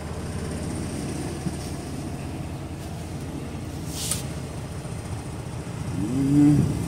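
Semi-truck's diesel engine running steadily, a low rumble heard from inside the cab. A short hiss about four seconds in, and near the end a brief pitched sound that rises and falls.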